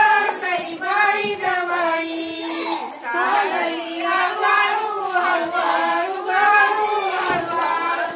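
Women singing a traditional Marathi jatyavarchi ovi, a grinding-stone wedding song. The melody moves in long, slowly wavering held notes.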